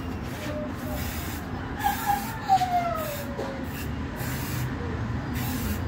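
Aerosol spray-paint can sprayed in several short hissing bursts.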